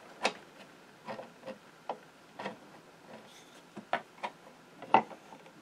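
Plastic-faced mallet tapping the bearing block and shaft of a Singer 15-91 sewing machine to nudge them into line: about ten light, uneven taps on the cast-iron mechanism, the first and one near the end the sharpest.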